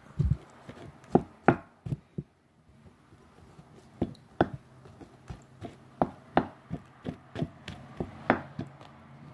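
Someone eating a beef pot pie close to the microphone: a string of short, sharp clicks and taps, a few scattered at first, then about two a second from about four seconds in.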